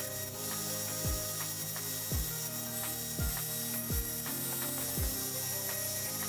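Background electronic music with a deep, falling-pitch thump on the beat about once a second over held notes.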